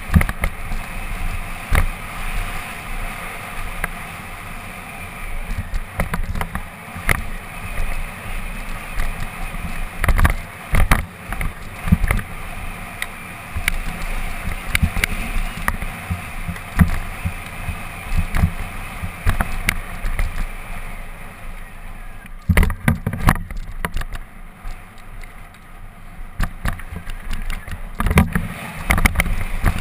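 Mountain bike rolling fast down a dirt and stone trail: the tyres run over loose ground under a steady rush of noise, broken by frequent sharp clatters and knocks as the bike jolts over rocks and bumps.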